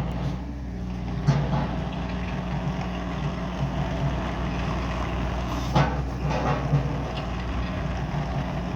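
Daewoo Solar 030 mini excavator's diesel engine running steadily, with a few clunks about a second in and again around six seconds in.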